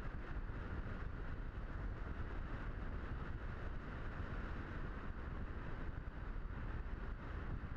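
Steady wind rush buffeting the microphone of a camera carried aboard a Blitz RC Super Skysurfer model glider in flight, a dense low rumble without any clear tone or knock.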